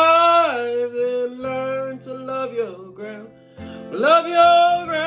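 A man sings long held notes over a strummed acoustic guitar, one note at the start and another, rising, about four seconds in, with only the guitar between them.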